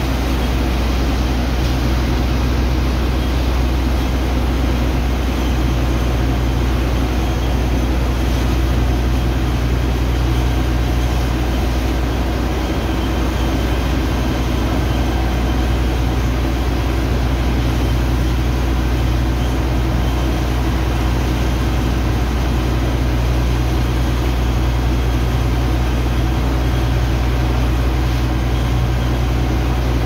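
Steady low drone of the engine-driven pumps of a sand-unloading dredger running continuously, with water from a jet hose hissing into wet sand.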